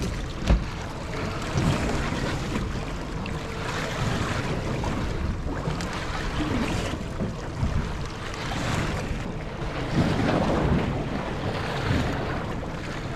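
Wind buffeting the microphone over waves slapping and splashing against the hull of a small fishing boat, with a single thump about half a second in.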